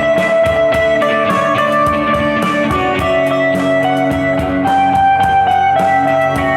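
Instrumental break of a rock song cover: electric guitar holding chords over a steady drum beat, with no vocals.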